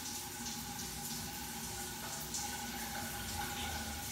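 Shower water running steadily, a continuous hiss of spray.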